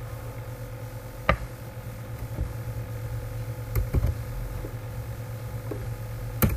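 A handful of sharp, isolated clicks from computer mouse and keyboard use, the loudest about a second in and near the end, with a close pair around the middle, over a steady low electrical hum.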